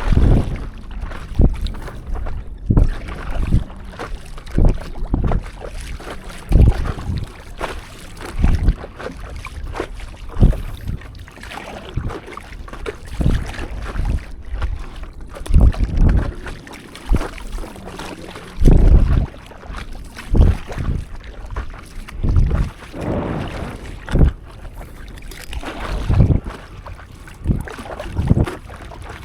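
Stand-up paddleboard paddle strokes pulling through seawater, a splashy surge about every one to two seconds, over wind rushing on the microphone.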